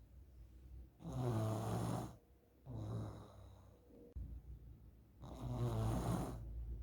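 A sleeping child snoring: two loud snores about four seconds apart, with a softer breath between them. The uploader presents this snoring as a sign of nasal polyps.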